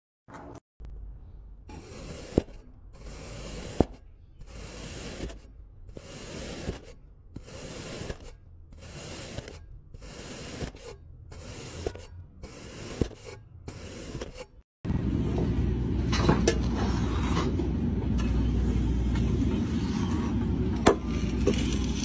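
Kinetic sand being scraped and cut in repeated strokes, about one a second with short gaps between them. About fifteen seconds in it changes suddenly to a steady low rumble under scattered scratches and crunches as damp sand is carved with a hand-held tool.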